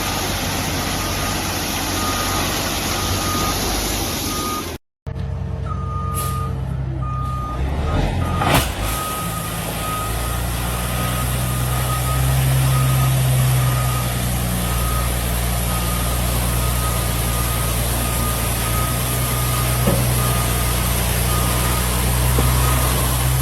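Heavy dump truck's diesel engine running with its reversing alarm beeping steadily, about one and a half beeps a second. A sudden short silence cuts in about five seconds in, a sharp knock follows a few seconds later, and the engine gets louder after about twelve seconds.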